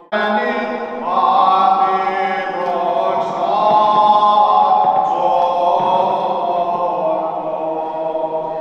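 Greek Orthodox Byzantine chant sung by several unaccompanied voices, with long held notes and slow ornamented turns in the melody.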